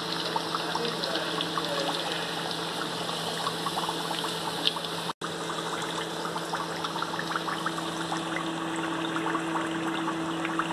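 Yeast donuts deep-frying in hot oil in an iron kadai: steady sizzling and bubbling with many fine crackles as the dough browns, a steady hum underneath. The sound briefly cuts out about five seconds in.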